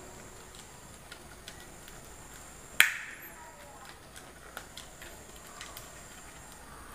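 Small clicks and taps of a wire being fitted by hand to a terminal on a plastic switch board, with one sharp click a little under three seconds in.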